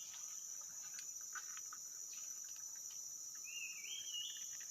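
Steady high-pitched insect chorus of crickets or cicadas. About three and a half seconds in, a short call rises in two steps, and a few faint clicks are heard.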